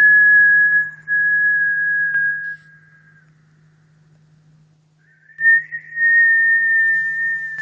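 A high, steady whistled tone held for about three seconds, with a short break about a second in. After a pause of about two seconds it comes back slightly higher and is held again.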